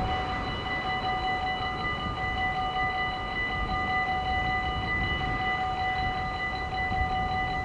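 Dutch level-crossing warning bell ringing continuously while the barriers are down, a steady high ringing made of several tones, over a low rumble.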